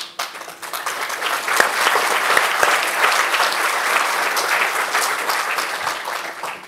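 Audience applauding, a dense clapping that builds up over the first second and fades out near the end.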